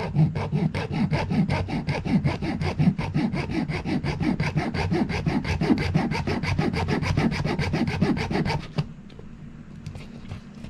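Junior hacksaw sawing through the sealed casing of a fitness band tracker in quick, even back-and-forth strokes, about six or seven a second; the sawing stops about nine seconds in.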